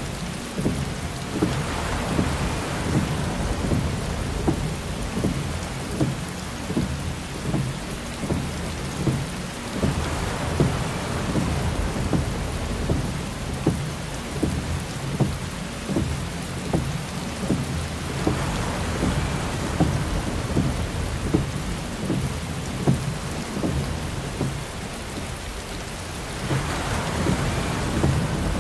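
Heavy rain drumming on a car's windshield and roof, dense with separate drop hits, and a windshield wiper swish rising over it about every eight seconds.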